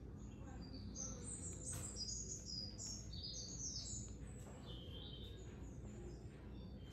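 Birds singing: a run of quick, high chirping notes that step up and down, from about one second in until about five seconds in, over a faint steady hum.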